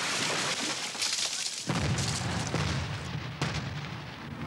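Explosive charge blasting a rocky hillside: a loud rushing crash, then about two seconds in a deep rumbling boom as rock and dust are thrown up, with a sharp crack a second or so later.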